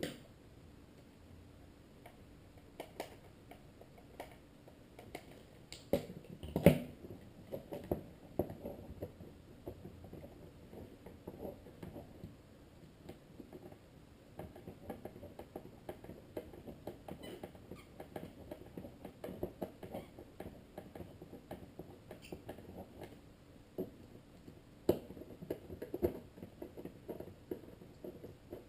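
Small screws being driven into a plastic car instrument cluster housing with a screwdriver, alongside the handling of the gauges: light scratching, clicking and tapping of plastic and metal parts. There is a sharper knock about six and a half seconds in, and a few more near the end.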